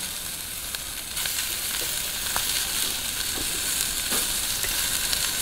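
Meat skewers sizzling on a grill net over a charcoal fire: a steady hiss with a few faint ticks.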